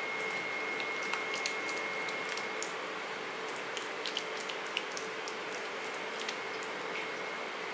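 A hand scraping and gathering coarse, moist horse gram chutney off a granite grinding stone (ammi): soft wet squishing with many small scattered clicks, over a faint steady whine in the background.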